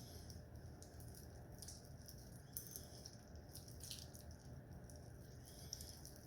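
Faint, irregular wet squelches and small sticky clicks of tacky metallic-glue slime being kneaded by hand, over a low steady room hum.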